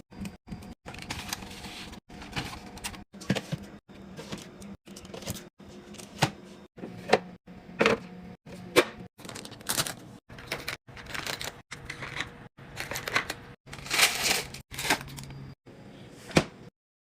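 Restocking clatter: packaged food items and containers being handled and set down, a quick irregular run of clicks, taps and knocks over rustling. The sound cuts out briefly many times and stops shortly before the end.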